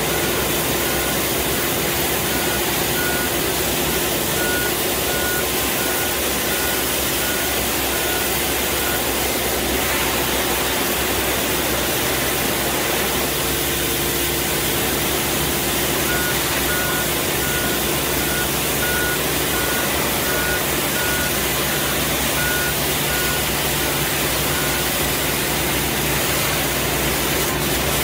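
Compact street sweeper running, its engine and suction fan giving a steady rushing noise as the spinning side brush sweeps along a concrete kerb. A warning beeper on the machine sounds in an even series of beeps, stopping about a third of the way through and starting again a little past the middle.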